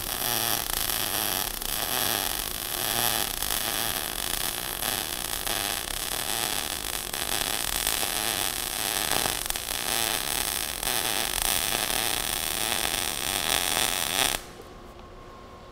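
MIG welding arc running a bead along an outside corner seam, a steady dense crackle with the weld digging in and penetrating deeply while laying flat. The arc cuts off abruptly about a second before the end.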